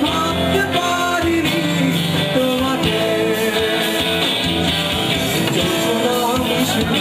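Live rock band playing a Bengali song, with electric bass and guitar and a melody line over them.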